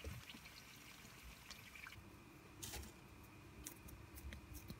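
Near silence, with a few faint soft clicks and rustles as hands press and shape a ball of dough; one is slightly louder just after the middle.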